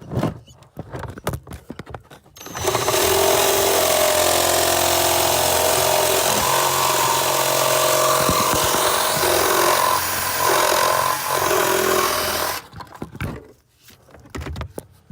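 Power drill running steadily for about ten seconds as it bores a stud hole through the steel firewall with a dull bit. It starts about two and a half seconds in, after a few clicks and knocks, and cuts off suddenly.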